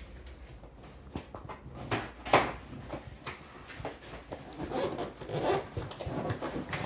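Cardboard box flaps being pulled out, the cardboard scraping and rubbing, with a sharp knock about two and a half seconds in.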